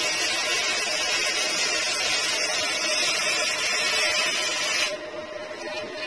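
Gasless flux-cored MIG welding arc from a Vector MIG-145 welder crackling and hissing steadily, then cutting off abruptly about five seconds in as the arc stops. A steady hum remains.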